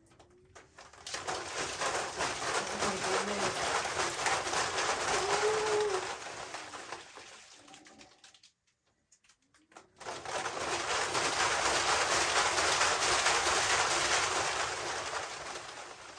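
Spin-art fling machine spinning a large 36 by 48 inch paint-covered panel, giving a loud, noisy whir. It spins up about a second in and runs for about six seconds, drops to near silence for about two seconds, then spins again for about six seconds and fades near the end.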